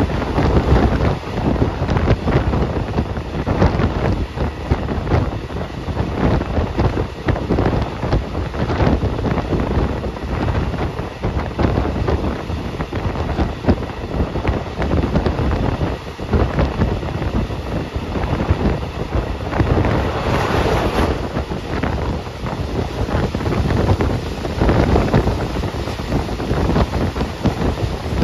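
Wind buffeting the microphone over the steady rushing rumble of a moving passenger train, as heard from an open window or door. There is a brief hiss about twenty seconds in.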